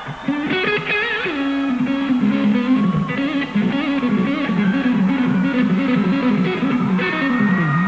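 Electric guitar playing a solo melody through an amplifier, its notes wavering with wide vibrato. Near the end one note slides down and back up in pitch.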